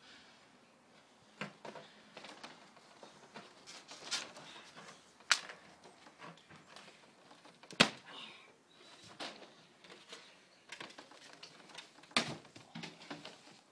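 Scattered sharp knocks and creaks of a wooden fence and its lattice being climbed and stood on, the loudest knock about eight seconds in and another just after twelve seconds as a climber jumps off.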